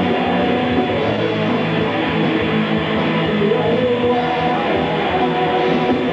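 Live rock band playing loud, steady music led by strummed electric guitar.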